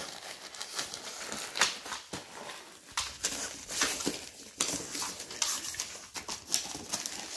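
Golden retriever tearing wrapping paper off a present with teeth and paws: irregular crinkling and ripping of paper.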